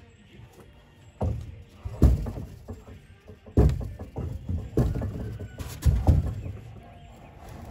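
A long wooden LVL rim joist board knocking and scraping against the top of a foam ICF foundation wall as it is lifted and set in place: several dull thumps with scraping between them.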